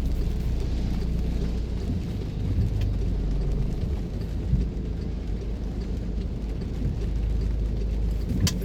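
Car driving in the rain: a steady low rumble of road and engine noise, with faint rain ticking and a sharp click near the end.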